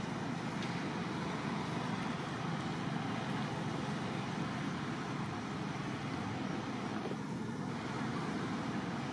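Steady hum of distant road traffic, an even noise that holds the same level throughout.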